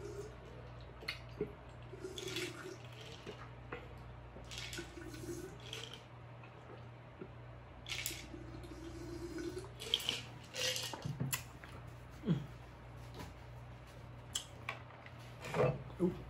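A man drinking from a glass in a series of gulps and swallows, close to the microphone, with liquid noises between them and a few small sharp knocks near the end.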